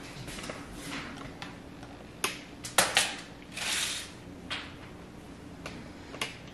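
Sharp clicks and light knocks of small ceramic bowls being handled and set down on a foil-covered tray, with a brief rustle about halfway through, over a faint steady hum.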